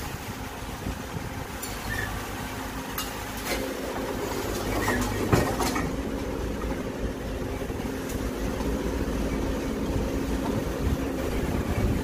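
Caterpillar 426F backhoe loader's diesel engine running under load as the backhoe digs and swings, its note stepping up about three and a half seconds in. A few knocks and clatters of rubble, the loudest just after five seconds in.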